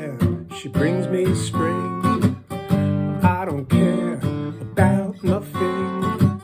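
Acoustic guitar playing an instrumental passage of strummed chords, with some notes bending in pitch.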